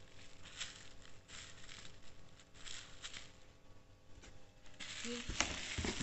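Plastic bubble wrap crinkling in short rustles as bubble-wrapped sauce bottles are handled, with louder handling noise and a sharp knock near the end.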